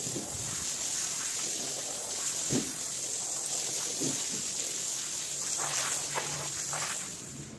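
Water spraying onto a soaked rug during washing: a steady hiss, with a few soft thumps and wet scraping along the way.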